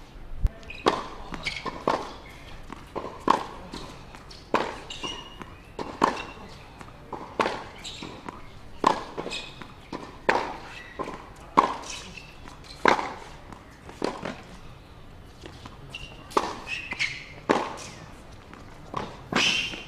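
Tennis racquets striking the ball in a long baseline rally, a sharp hit about every one and a half seconds.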